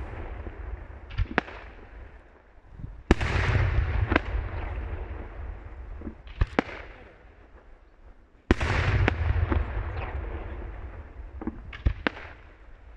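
Daylight firework shells bursting in the air. Two big reports come about three and eight and a half seconds in, each followed by a few seconds of fading rumble and crackle. Single sharp bangs fall in between.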